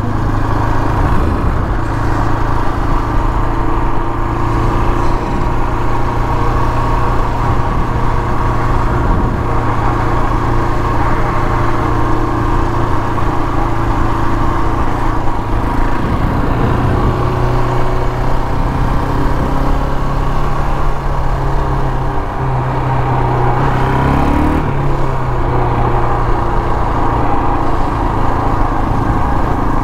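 KTM 525 XC quad's single-cylinder four-stroke engine running steadily while cruising, with a short rise and fall in pitch about three-quarters of the way through.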